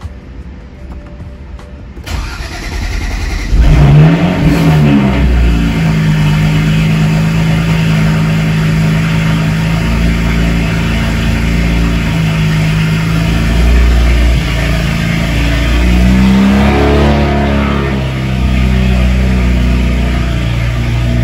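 BMW 335is's N54 turbocharged inline-six being started: it cranks and catches about three and a half seconds in with a quick flare of revs, then settles into a steady idle with the loudness of a cold start. Later the revs swell and drop back once before it idles on.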